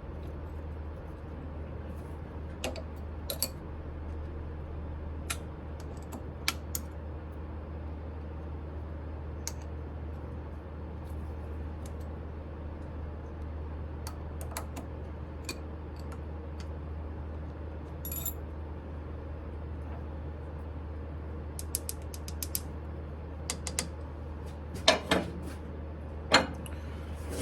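Metal tools and parts being handled at a metal lathe: scattered sharp clicks and taps, coming thicker near the end, over a steady low hum.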